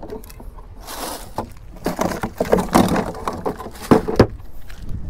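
A plastic cooler lid is opened and a plastic bag of ice rustles against it, with a run of knocks and clatters; the loudest come about four seconds in.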